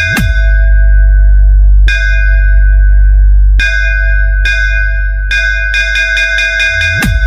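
DJ bass-test music track: a bell-like synth tone struck in quick runs of repeated hits and single hits, over a continuous heavy deep bass. A bass swoop dips and comes back up just after the start, and again near the end.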